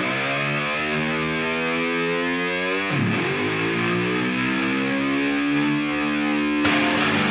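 Music: distorted electric guitar holding long notes that dip and slide in pitch twice, then rhythmic strumming starts near the end.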